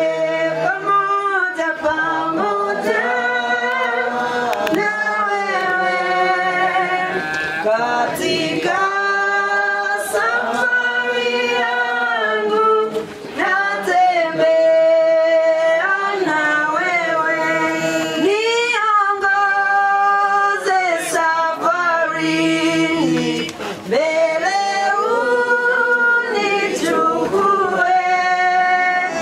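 A group of men's and women's voices singing together in long held phrases, with short breaths between phrases about a third and four-fifths of the way through.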